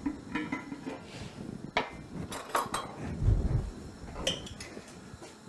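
Kitchen pots and metal utensils clinking and knocking in a few separate clatters, with a dull thump about three seconds in.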